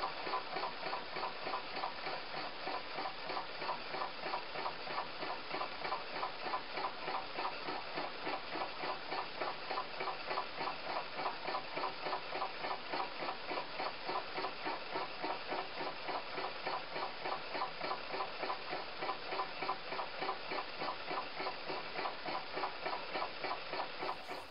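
Model hot-air engine (Reichelt 'Barock' model) running steadily, its mechanism giving a fast, even rhythmic ticking beat that cuts off near the end.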